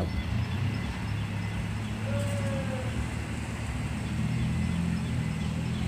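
Heavy diesel engine running steadily at low revs, a low even hum.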